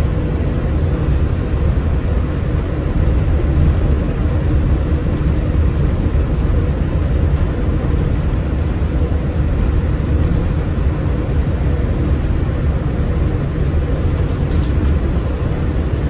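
Steady low rumble of a Walt Disney World monorail in motion, heard from inside the car, with a faint steady hum running over it.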